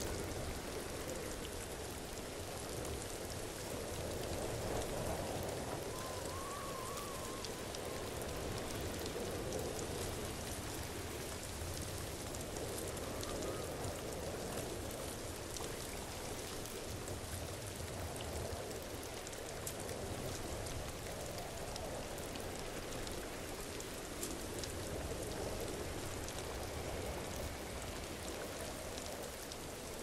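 Waterfall: a steady rush of falling, splashing water that swells and eases gently, with fine droplet patter on top.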